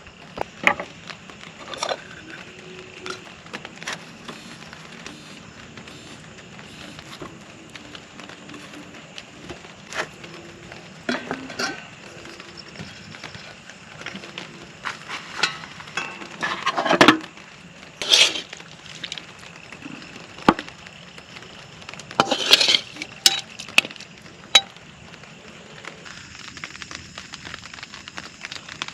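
Irregular clinks and knocks, like camp gear or cookware being handled, over a steady background hiss; a few sharper knocks come about two-thirds of the way in.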